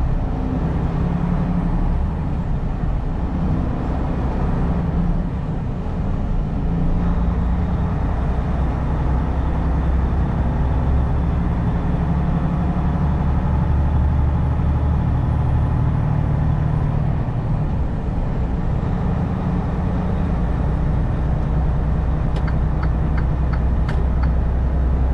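Semi-truck engine and road noise heard inside the cab while driving: a steady low drone with tyre and wind noise. A run of light ticks comes near the end.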